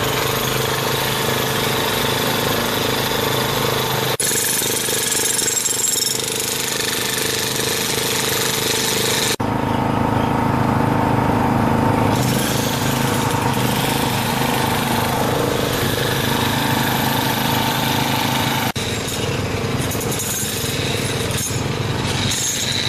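Engine-driven machinery running steadily, with brief breaks where the sound cuts.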